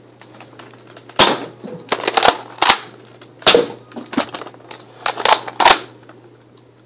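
A series of sharp plastic clacks and snaps from a red Nerf Mega blaster being handled, about eight in all, grouped in bunches over a few seconds.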